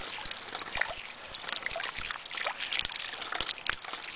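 Rainwater collected off a roof running out of a hose and pouring into a water-filled plastic tub, a steady splashing and trickling with small sharp splashes throughout.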